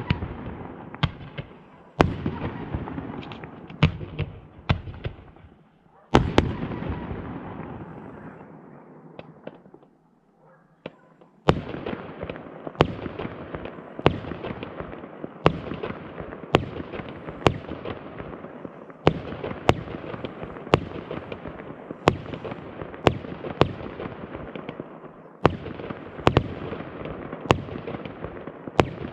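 Aerial fireworks display: loud shell bursts, each trailing off in a long echoing rumble. After a short lull about ten seconds in comes a continuous barrage, with bangs about one or two a second over a steady crackle.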